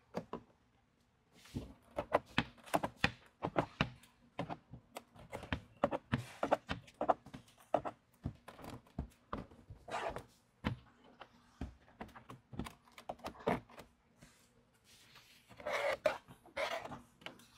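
Irregular light clicks, taps and knocks, often several a second, from hand work on a pickup truck's door window and trim as window film is fitted. There is a brief scraping rustle about ten seconds in and a louder rustling just before the end.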